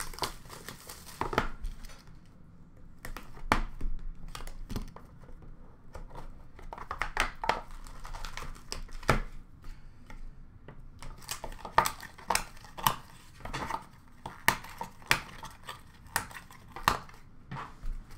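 Hands opening a trading-card box: irregular crinkling and tearing of packaging, with sharp light taps of cardboard and card, busier in the second half.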